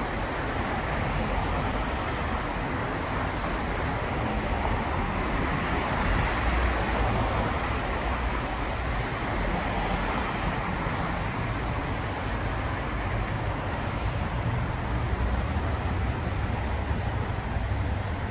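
City traffic passing through an intersection: car tyres hissing on a wet road over a low engine rumble, swelling as vehicles pass close about six to ten seconds in.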